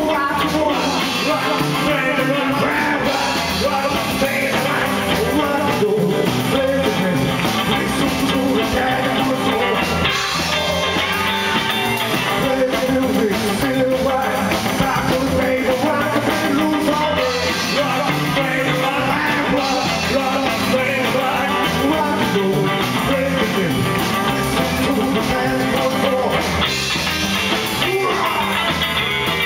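Rockabilly band playing live: electric guitars and drums, with a man singing lead.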